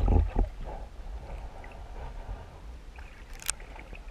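Water sloshing and a low rumble, loudest in the first half second, with one sharp splash about three and a half seconds in, as a hooked tench is fought up near the surface.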